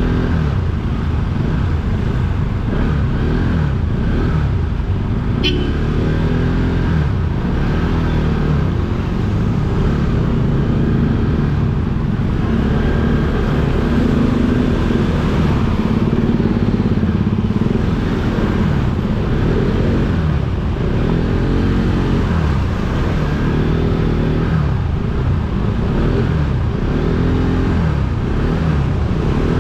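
Motorcycle engine running under way, its pitch rising and falling repeatedly as the throttle opens and closes, with a single sharp click about five seconds in.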